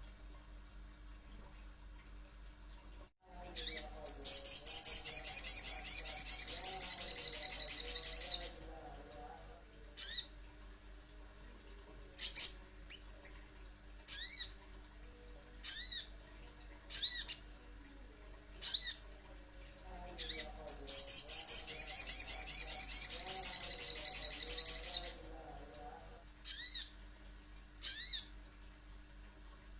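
Recorded song of a sogok ontong (sogon), a spiderhunter, played as a lure for songbirds. Two long, fast, high trills of about five seconds each are separated by single sharp chirps every second or two.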